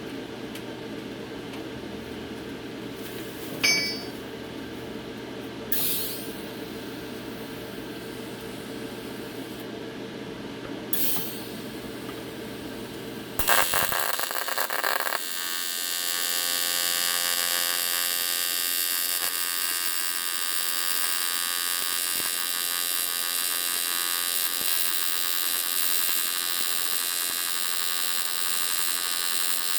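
Low steady hum with a few short clicks, then about halfway through an AC TIG arc strikes on aluminum from an AHP AlphaTIG 200X and settles into a steady, high-pitched electric buzz while the bead is run.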